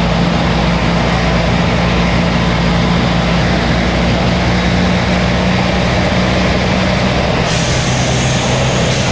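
Sentosa Beach Tram, an articulated bus-tram, with its engine running steadily as it drives along. Its strongest low note falls away about seven seconds in, and a steady hiss starts soon after.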